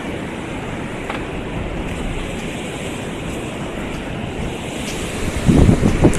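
Wind on the microphone: a steady rushing noise, with heavier low buffeting gusts near the end.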